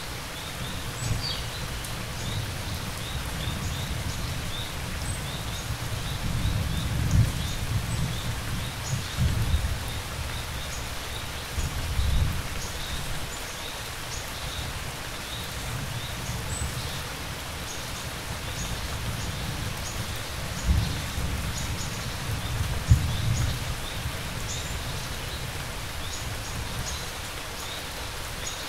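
Steady rain with low thunder rumbling and swelling several times, and crickets chirping in short, quickly repeated pulses.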